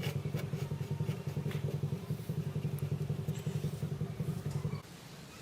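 An engine idling with a steady, fast-pulsing rumble, then shut off abruptly near the end.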